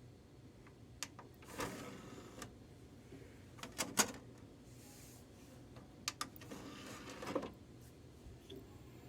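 Faint computer keyboard and mouse use: a handful of sharp clicks, with two short stretches of rustling.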